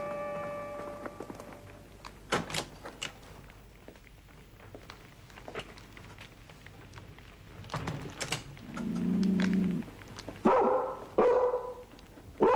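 A dog barks sharply twice near the end, just after a low drawn-out sound from it, and again at the very end. Earlier there are a few light knocks, and music fades out at the start.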